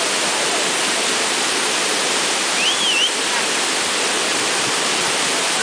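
Large waterfall plunging over a rock ledge: a steady, unbroken rush of falling water. A short high whistle rises and falls briefly about halfway through.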